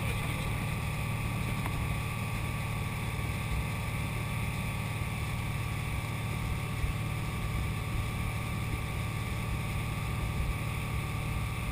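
Speedboat engine running steadily at towing speed, with the rush of water in its wake.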